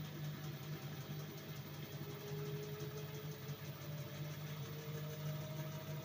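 LG E10B8ND5 washing machine draining and spinning at low speed: a steady hum with a faint whine that slowly rises in pitch from about two seconds in as the drum gathers speed.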